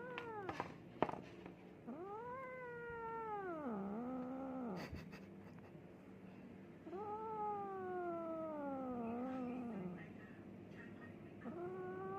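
Domestic cat yowling in long drawn-out wails, three of them, each bending down in pitch as it trails off. A few short clicks are heard in the first second and once midway.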